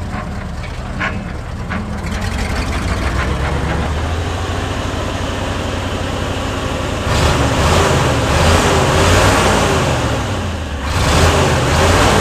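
1970s Ford F750 grain truck's engine running. About seven seconds in it is revved harder and gets louder, its pitch rising and falling; it drops briefly near eleven seconds and then picks up again.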